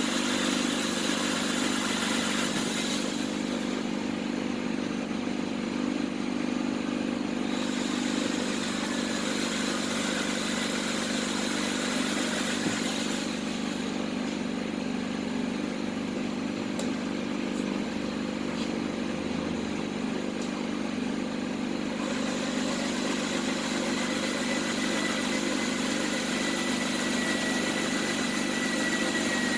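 A handheld electric power tool runs steadily while cutting into the welded tub of a Candy washing machine. Its tone shifts slightly every several seconds as the cut goes on.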